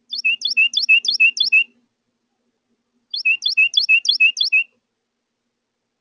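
Carolina wren singing its loud rolling song twice, each song about five quick repeats of a two-note phrase, a high slurred note dropping to a lower one, at about three a second, with a pause of over a second between songs.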